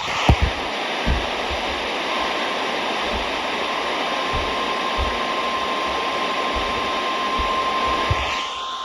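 Radio static: a steady loud hiss from a weakly received broadcast, with a thin steady tone near 1 kHz coming in about two seconds in and a few low thumps.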